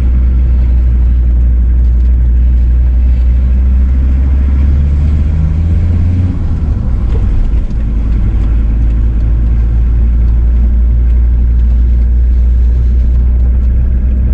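Car engine and road noise heard from inside the cabin: a steady low hum whose pitch rises about five seconds in and drops back about a second and a half later.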